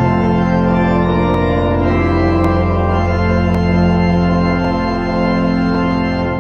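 Church organ playing full, held chords over a deep bass, the chords changing slowly; the final chord is released near the end and dies away.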